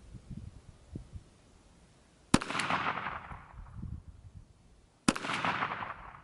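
Two shots from a KelTec PMR-30 .22 Magnum pistol, about two and a half seconds apart, each a sharp crack followed by an echo fading over about a second.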